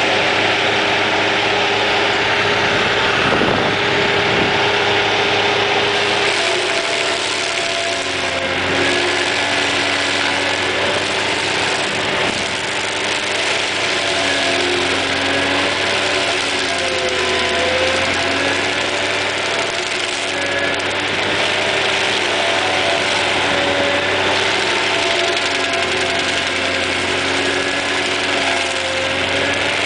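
Excavator-mounted stump grinder running hard: its 200 hp second engine drives an AHWI SF1100 carbide-toothed grinding wheel, over a dense hiss. The engine pitch sags and recovers every few seconds.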